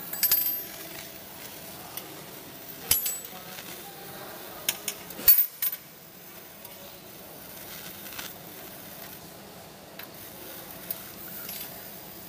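A few sharp metallic clinks at irregular moments, the loudest a short cluster about five seconds in, over a steady low hum.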